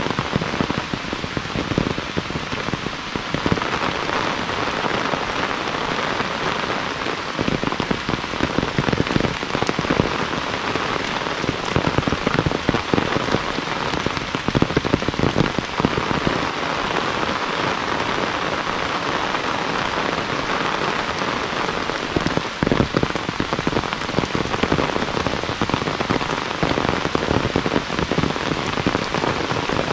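Heavy rain falling steadily, with many close drops striking throughout.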